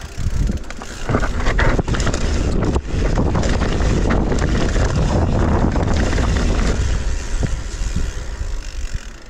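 Mountain bike riding down a rough trail: wind buffeting the microphone over the rattle and crunch of tyres on dirt and rock, with many sharp knocks from the bike. The noise builds about a second in and eases near the end.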